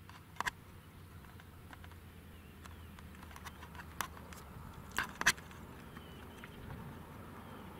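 Distant diesel-hauled Talgo train running along the line: a faint low rumble that grows slightly. A few sharp clicks or chirps sound over it, the loudest pair about five seconds in.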